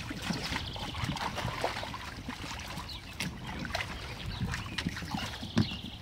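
Water sloshing and splashing in a plastic wading pool as two dogs wade and move around in it, with irregular splashes and knocks.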